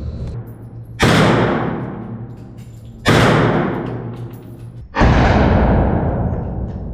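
Three single shots from an M16 rifle, about two seconds apart, each trailing off in a long echo.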